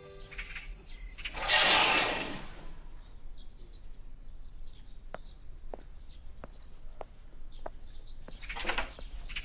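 Birds chirping, with a loud rushing swish about a second and a half in and a second swish near the end as curtains are pulled open; light ticks are scattered between them.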